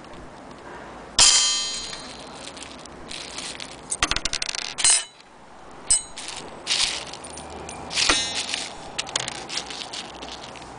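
Brass parts of an antique French clock movement clanking as they are handled. There are two sharp metallic strikes, about a second in and near eight seconds, each ringing on for most of a second, with lighter clinks and rattles between them.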